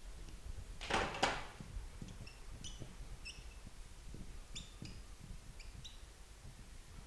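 Marker writing on a whiteboard: two louder scratchy strokes about a second in, then a run of short, high squeaks as characters are written.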